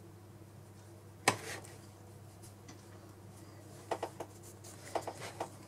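Items being handled on a wooden desk: one sharp knock about a second in, then a few light clicks and taps near the end, over a faint steady hum.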